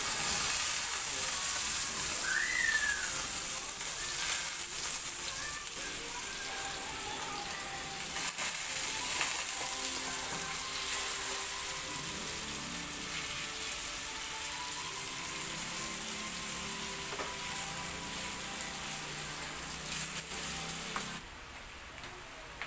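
Chunks of chicken breast sizzling in hot oil in a frying pan as they are tipped in and stirred with a wooden spatula. The sizzle is loudest as the pieces hit the oil, rises again about eight seconds in, and drops suddenly near the end.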